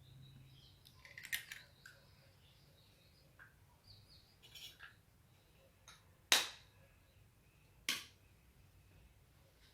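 Scattered light clicks and taps, the two loudest about a second and a half apart in the middle, with faint bird chirps.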